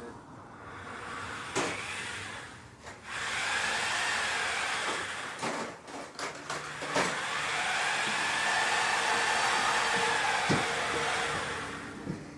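Power tool running in two runs, a short one and then a long one of about eight seconds: a loud hissing whir whose pitch rises and then falls, with a few clicks and knocks in between.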